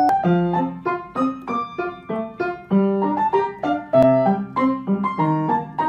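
Background music: a piano playing a light melody of short notes, about three a second.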